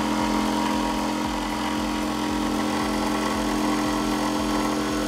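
Corded jigsaw running steadily, its blade cutting through a kitchen worktop along the marked sink cutout line.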